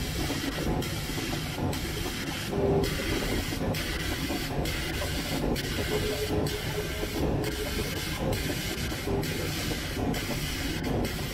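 Laser cutter cutting a row of holes in leather: a steady hiss from the cutting head that breaks off briefly about once a second as it moves from hole to hole, over a low steady rumble.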